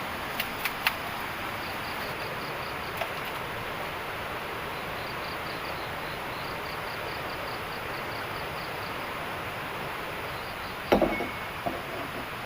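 A cricket chirping in runs of quick, even pulses, about five a second, over a steady hiss. A few sharp clicks sound near the start, and a clatter of knocks about eleven seconds in.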